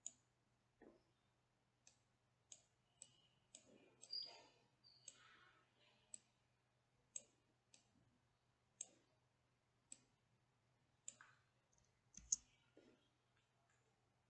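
Computer mouse buttons clicking: faint, single sharp clicks at irregular intervals, about fifteen in all, over a low steady hum.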